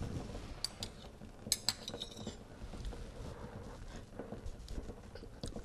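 A metal ladle and spoon clinking lightly against the soup pot and a small bowl as broth is scooped out for tasting. A few faint clinks, bunched in the first two and a half seconds, with one more near the end.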